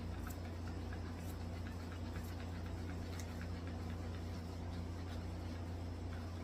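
Electric dog grooming clippers running with a steady low hum, with faint light ticks over it.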